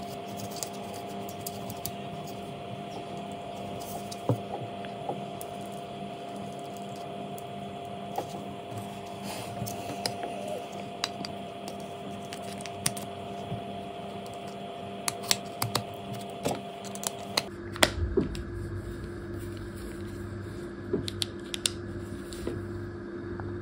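A steady hum with scattered light clicks and taps; about seventeen seconds in, the hum shifts to a different, lower-pitched drone with a pulsing low part.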